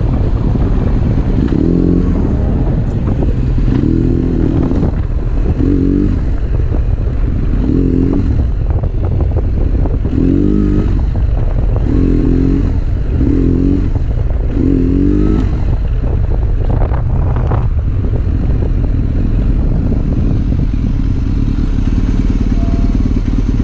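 Motorcycle engine running steadily while riding, picked up close by the rider's camera. Through the first half, about eight short muffled pitched sounds come every second or two over the engine.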